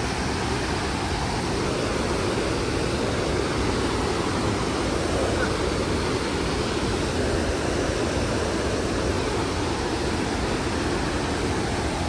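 Steady rushing of a waterfall, an even, unbroken roar of falling water.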